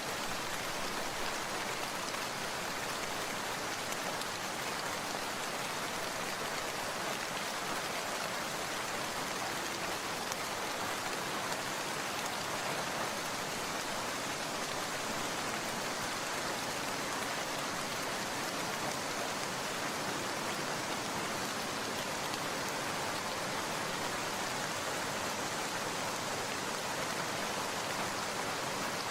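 Steady rain falling, an even hiss with no thunder or other breaks.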